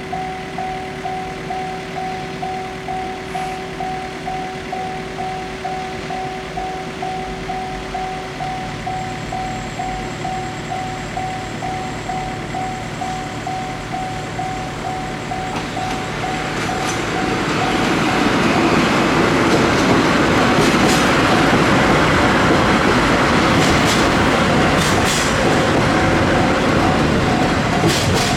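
Level-crossing bell ringing in a steady beat of about two strokes a second while double-headed DD51 diesel-hydraulic locomotives approach, their engine sound growing. From about sixteen seconds in the locomotives and train pass close by, loud enough to cover the bell, with a few sharp wheel-on-rail clacks near the end.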